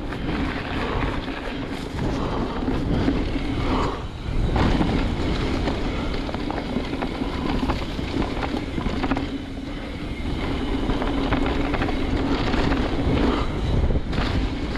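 Trek Fuel EX 9.8 mountain bike rolling fast along a dirt trail: a steady tyre hum and trail chatter under wind rushing over the microphone.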